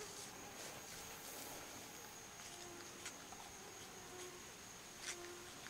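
A few faint, sharp cracks of an ocelot biting into an eggshell, one about three seconds in and another about five seconds in, over a steady high-pitched insect drone.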